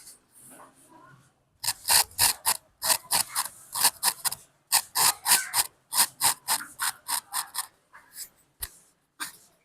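Straight razor scraping across a scalp during a head shave: short, quick strokes, about three a second, after a quieter first second and a half.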